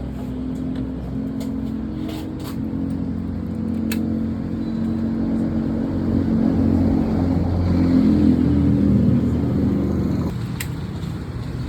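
A motor vehicle engine running, with its pitch wavering and growing louder toward the middle, then cutting off abruptly about ten seconds in. A few sharp clicks come early on.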